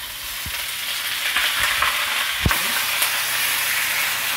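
Chunks of raw beef sizzling as they are tipped into hot olive oil in a nonstick wok. The sizzle grows louder as more meat goes in, with a single sharp knock about two and a half seconds in.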